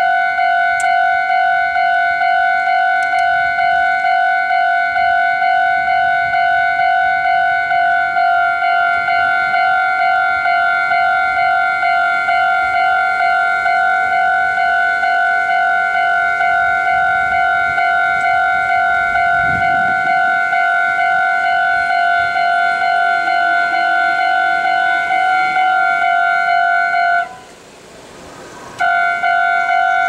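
Japanese railway level-crossing alarm ringing its electronic bell tone in rapid, even repeats, warning of an approaching train. Near the end it cuts off for about a second and a half, then starts ringing again.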